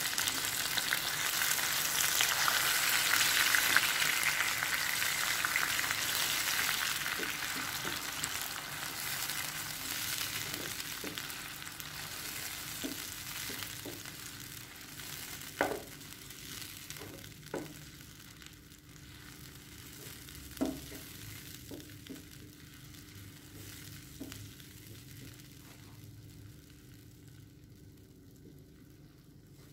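Grated tomato and garlic sizzling in olive oil in a nonstick frying pan while being stirred with a wooden spoon. The sizzle is loudest in the first few seconds and fades steadily. Past the middle come a few sharp knocks of the spoon against the pan.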